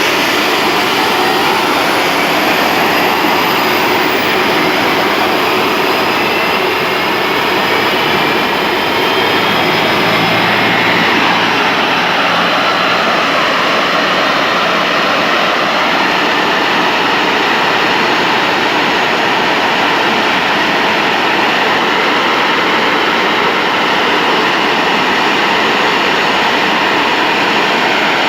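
CFM56-7B turbofan engine of a Boeing 737-800 spinning up for a compressor wash: a whine rising steeply in pitch over the first few seconds, then a loud, steady rush of air and spinning engine.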